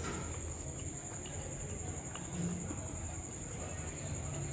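Crickets trilling: one steady, high, fast-pulsing trill over a low background hum, with a few faint clicks from chewing and cutlery.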